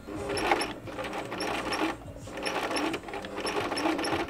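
Electric sewing machine stitching in three short runs, pausing briefly about two seconds in and again about three seconds in.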